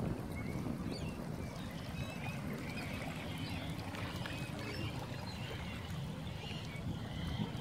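Small waves lapping gently at the lake edge, a steady low wash of water, with faint high chirps from birds scattered through it.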